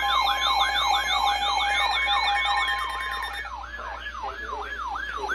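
Electronic siren in a rapid yelp, its pitch sweeping up and down about two and a half times a second. For the first three seconds steady tones sound under the sweeps; then the sweep pattern changes and the steady tones stop.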